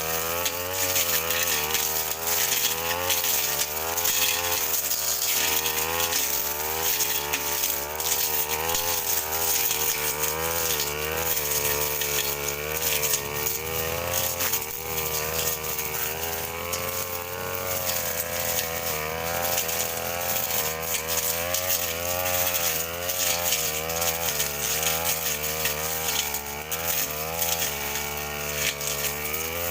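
Brush cutter engine running fast while cutting mixed scrub and alang-alang grass, its pitch wavering up and down as the blade takes the load.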